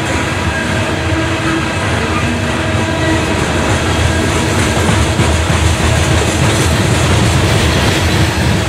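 Loaded open-top coal hopper cars rolling past close by: a steady rumble and clatter of steel wheels on the rails.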